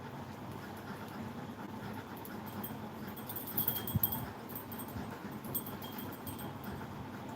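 Small pet birds chirping in short bunches, loudest about three and a half to four seconds in and again around five and a half seconds, over a low steady rumble.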